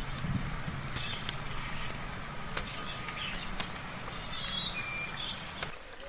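Birds chirping in short, scattered calls over a soft hiss of rain, with many sharp ticks. A low steady hum underneath stops near the end.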